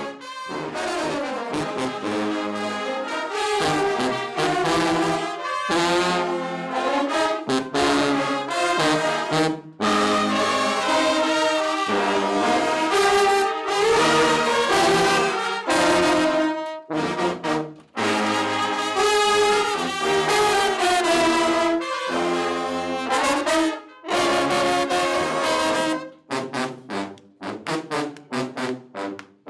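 Junkanoo brass section of trumpets, trombones and sousaphones playing a melody in long phrases with brief breaks. Near the end it switches to short, punchy repeated hits.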